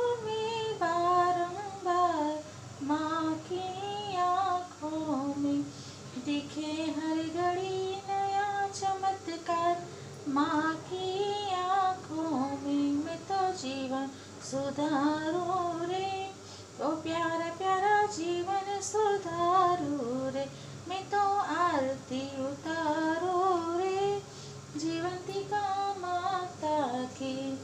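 A woman's voice singing a Hindu devotional chant in short melodic phrases with brief pauses, sung from a printed vrat katha booklet.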